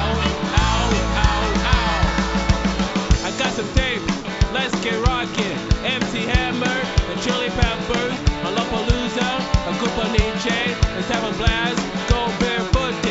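Rock music with a steady drum beat and wavering melodic lines above it; a deep sustained bass drops out about three seconds in.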